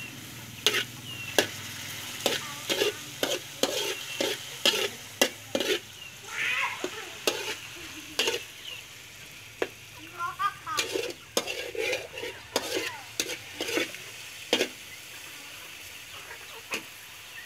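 Metal spatula scraping and clacking against a steel wok in quick, irregular strokes as sliced pork is stir-fried, over a faint steady sizzle.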